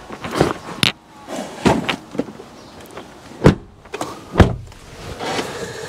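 A series of separate knocks and clicks, with two heavy thumps about three and a half and four and a half seconds in.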